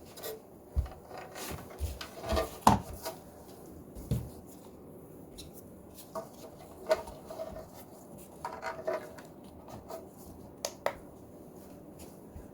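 Handling noise from small cordless power tools being picked up and set down: scattered knocks, clicks and rubbing, the loudest cluster of knocks about two to three seconds in, then lighter taps and clicks.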